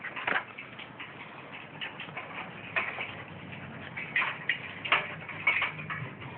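A dog's paws and claws tapping and knocking on the rungs of a metal stepladder as it climbs down, in irregular clicks a few times a second.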